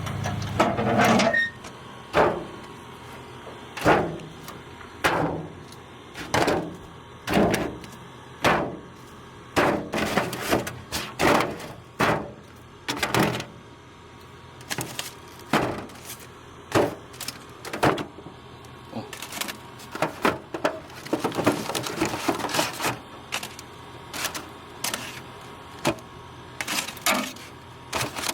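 Irregular series of sharp knocks and clatters, about one or two a second, with quicker clusters in places.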